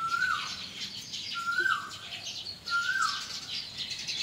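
A flock of small birds chirping and twittering continuously, with a louder whistled call, a short rising note that drops away at the end, repeated three times about a second and a half apart.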